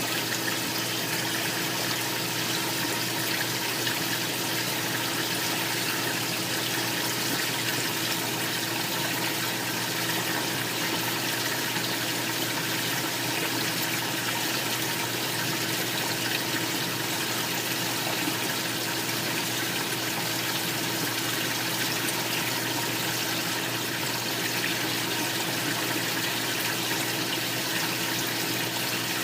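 Large commercial fish tank's water circulation running: a steady, unchanging rush of moving water with a faint steady hum underneath.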